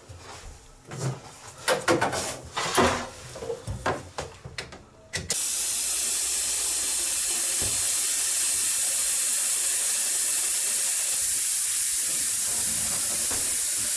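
Several clicks and knocks from handling push-fit pipe fittings. Then, about five seconds in, compressed air starts hissing steadily as an airline pressurises the heating pipework: air is escaping through a leaking joint.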